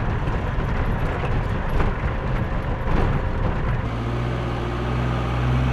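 Old diesel camper van driving on a dirt desert track: a rough, rumbling drive noise heard from inside the cab. About four seconds in it changes to a steady, even-pitched engine hum.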